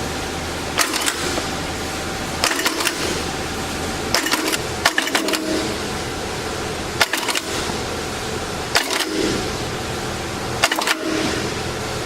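Stimpson 499 electric eyelet and grommet setting machine running: a steady motor hum, with a short cluster of sharp metallic clacks as the machine cycles every couple of seconds, six or seven times.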